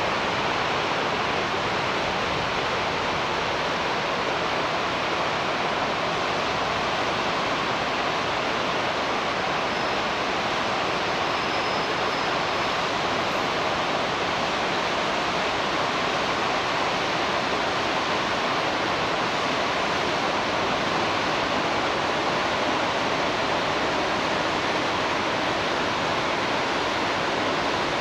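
Steady rushing of a mountain river in spate, an even, unbroken roar that does not change as the distant train passes.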